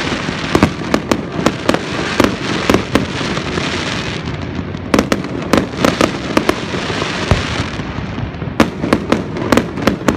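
Aerial fireworks shells bursting in quick, irregular succession: sharp bangs over a continuous crackle, with a short stretch of crackle and fewer bangs about four seconds in.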